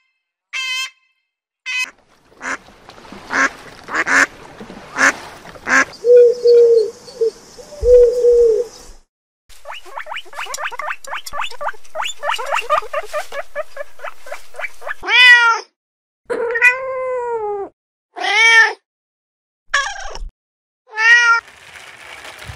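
A run of different animal calls one after another: a rapid chattering series of short calls, then several loud, arching cries that rise and fall in pitch.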